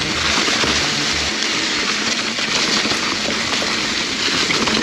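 Mountain bike rolling fast over a trail covered in dry fallen leaves: a steady crackling rush of the tyres through the leaves, with many small clicks and rattles from the bike.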